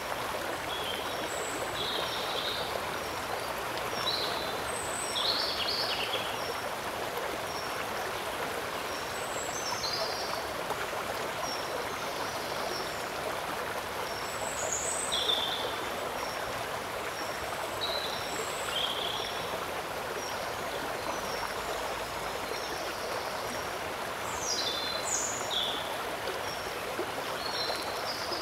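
Steady rushing of flowing shallow water, with short, high bird chirps scattered throughout.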